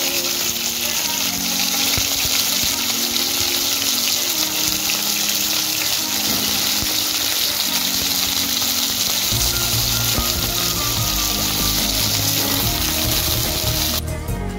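Peeled matoke (green cooking banana) pieces frying in hot oil with onions in a metal pot, giving a steady loud sizzle that cuts off abruptly near the end. Background music plays under it, with a bass line coming in about two-thirds of the way through.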